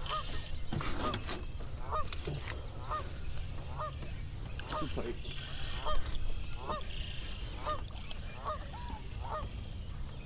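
Geese honking repeatedly, about two short calls a second, over a low wind rumble on the microphone. A single knock stands out about six seconds in.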